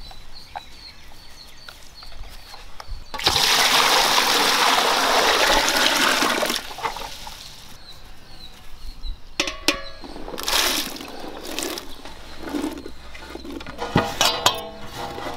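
Water poured from a water pot into a large aluminium vessel, a steady splashing for about three seconds. Then chopped ridge gourd pieces are tipped off a metal plate into the water with small splashes, clattering and sharp knocks of metal on metal near the end.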